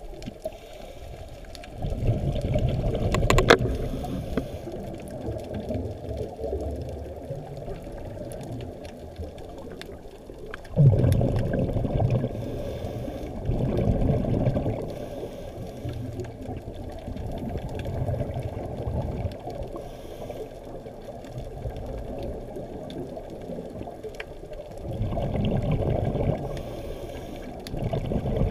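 Scuba breathing heard underwater: exhaled bubbles from a diver's regulator rumbling and gurgling in irregular surges, the sharpest starting about eleven seconds in.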